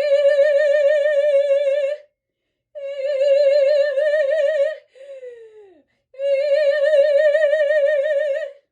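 A solo singing voice holding three long, loud notes on the same high pitch with strong vibrato, with a short downward sliding note between the second and third: a demonstration of a big, breath-supported sung sound.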